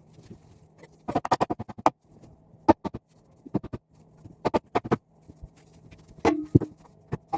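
Irregular sharp knocks and bangs from demolition work on a house wall, with a quick run of strikes about a second in and more single and paired hits after, over a faint steady hum.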